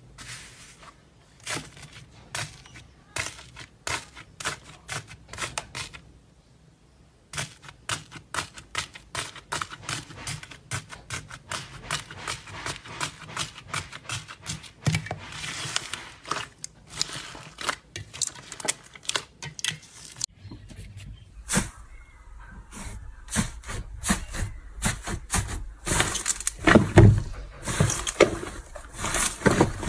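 Slime being pressed and squeezed by hand, giving rapid crackling clicks and pops, with a short pause about six seconds in and louder pops near the end.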